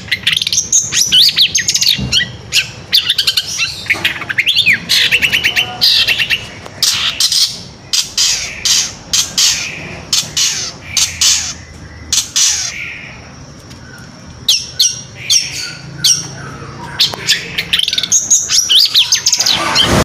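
Caged long-tailed shrike (cendet) singing a fast, varied song full of mimicked phrases: rapid repeated notes, whistled glides and harsh notes, broken by a short lull about two-thirds of the way through.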